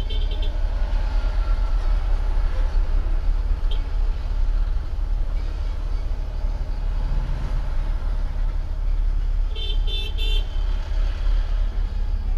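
Steady low rumble of road traffic, with trucks and vans passing close by. About ten seconds in come three quick, evenly spaced beeps.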